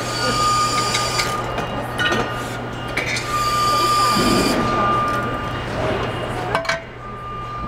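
Assembly-plant floor noise: a steady machine hum with a high whine that comes and goes, and clinks and knocks of metal parts being handled, the sharpest a little before the end.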